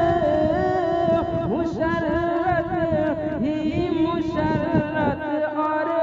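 A voice singing an Urdu naat bidding farewell to Ramadan, drawing out long, wavering held notes between the lyric lines.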